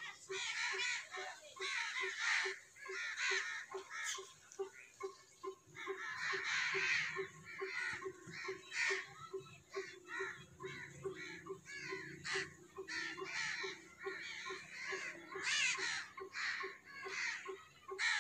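A large flock of crows cawing without pause, many calls overlapping.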